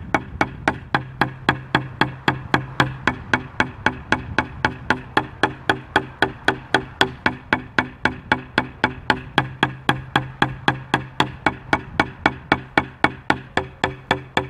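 Sticks striking a tenor (quad) practice pad board, rubber pads set in a wooden frame, in a steady stream of even single strokes about three to four a second. This is eight strokes on each pad, working down from pad one to four and back up.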